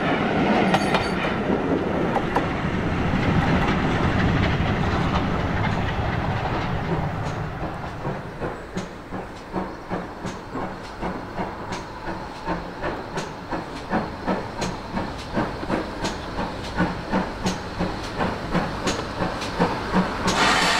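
A train of coaches rumbling past on the rails, fading away over the first several seconds. Then a steam locomotive pulling away slowly, its exhaust beating about twice a second, with a loud hiss of steam near the end.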